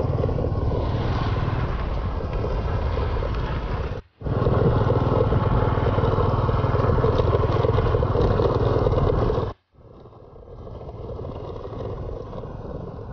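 Small motor scooter engine running steadily while riding on a dirt track. The sound cuts off abruptly twice and is quieter after the second break.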